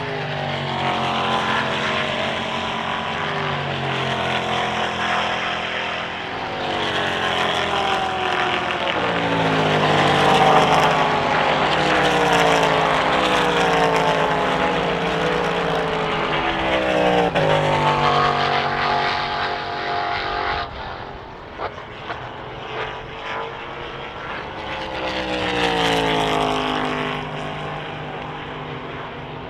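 Endurance race cars passing at speed, several engines one after another, each note climbing through the gears and then sliding down as the car goes by. Around two-thirds of the way through come a few sharp pops as the sound drops away.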